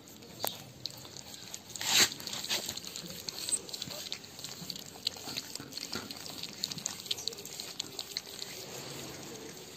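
Several pug puppies lapping and chewing wet mash from a steel plate: a string of irregular small wet smacks and clicks, with one louder smack about two seconds in.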